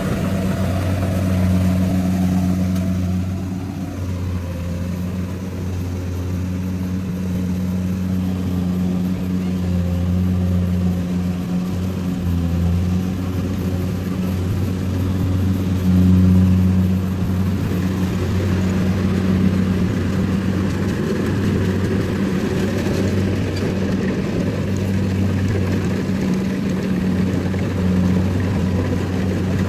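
Rice combine harvester engine running steadily under load, a continuous low hum.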